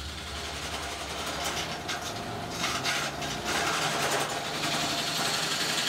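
Wood lathe running, spinning a laminated hardwood blank, with a rough rubbing hiss that swells and fades in the middle as a hand rests on the turning wood.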